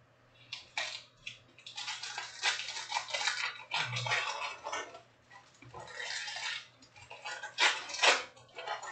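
Crinkling and rustling of foil trading-card pack wrappers being handled, in irregular bursts with a couple of short pauses.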